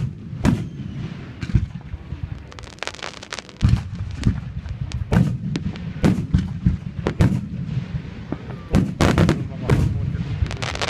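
Aerial firework shells bursting in quick succession: a sharp bang right at the start, then many bangs with crackling in between, thickest about three seconds in and again about nine seconds in.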